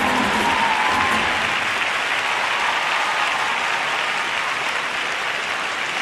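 Arena audience applauding steadily at the end of a figure skating program. The last held notes of the program music fade out about a second in.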